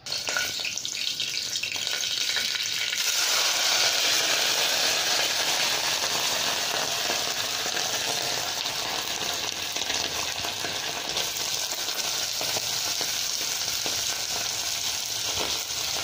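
Freshly rinsed, still-wet omena (small sardines) frying in hot vegetable oil in an aluminium saucepan, sizzling loudly. The sizzle starts suddenly as the fish go in and grows louder about three seconds in, then holds steady as the water on the fish boils off.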